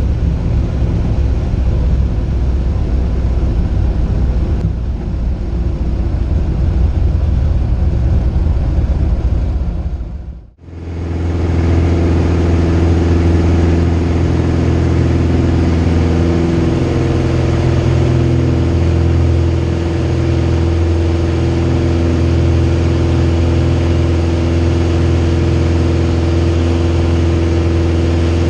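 Piston engine and propeller of a Vans RV light aircraft heard from inside the cockpit, running at takeoff power through the takeoff roll and climb-out. The sound drops out briefly about ten seconds in, then holds a steady drone with a clear pitch.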